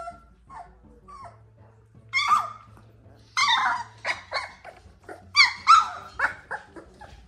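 Young puppies squeaking and yelping as they squirm and wrestle in a pile: short high-pitched calls that fall in pitch, one about two seconds in, another around three and a half seconds, and a quick run of several, the loudest, between five and six and a half seconds.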